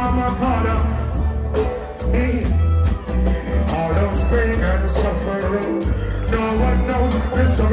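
Live dancehall performance: a deejay singing and chanting into a microphone over a heavy-bass backing track played through a PA system.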